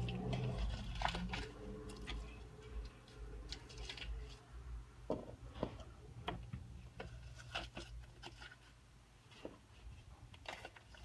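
Light handling noises: scattered small clicks and taps of toys and packaging being moved about, over a low hum that fades after the first second or so.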